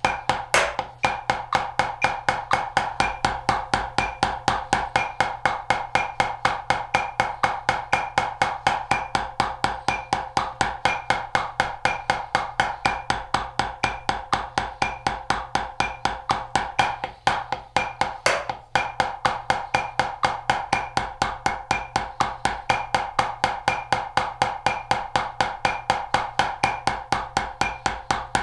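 Wooden drumsticks striking a rubber practice pad in a steady, even stream of strokes, eight on each hand, with a short break about 17 seconds in. A steady click keeps time underneath.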